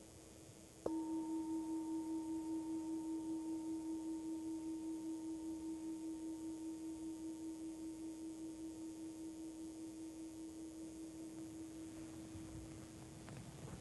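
Large hammered metal singing bowl struck once about a second in, then ringing with a low steady tone and a fainter higher overtone, pulsing slightly as it slowly fades. It sounds the close of a time of quiet meditation.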